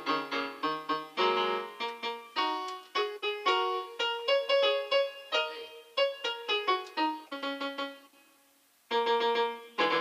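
Electronic keyboard with a piano sound, played in uneven clusters of notes and chords. It stops about eight seconds in and starts again about a second later.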